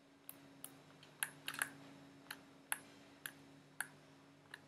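About ten sharp, irregularly spaced clicks from working a computer's mouse and keys, over a faint steady low hum.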